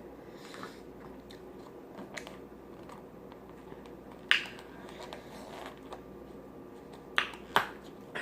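Close-up chewing with wet mouth smacks: scattered sharp smacking clicks, the loudest about four seconds in and two more near the end.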